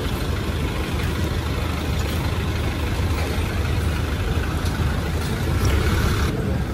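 Steady low rumble of a motor vehicle's engine idling, with road traffic noise around it. A brighter hiss-like stretch near the end cuts off suddenly.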